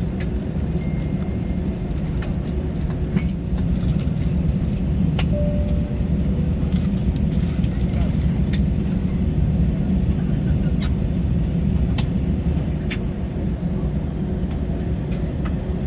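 Steady low drone in an Airbus A320 cabin after landing, with a faint steady hum and a few sharp clicks scattered through it, and some voices underneath.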